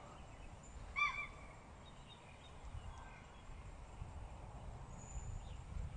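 Bird calls: one short, clear call that rises and falls about a second in, then a few fainter chirps, over a low rumble.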